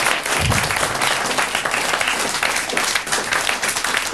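Studio audience applauding, many people clapping at once in a dense, steady patter. A brief low thump comes about half a second in.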